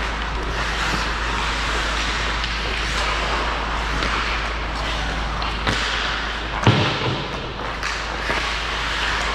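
Hockey game play on a rink: a steady wash of noise with a few short knocks, and one loud thud about two-thirds of the way through.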